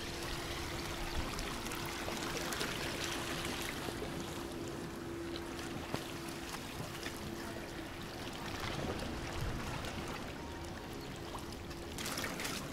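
Small waves lapping and washing against a rocky seashore, with a faint steady hum underneath. Louder rustling comes in near the end.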